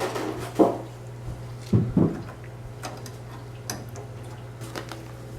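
Hands handling plastic PC parts during assembly: a few soft knocks in the first two seconds, then scattered light clicks and taps, over a steady low hum.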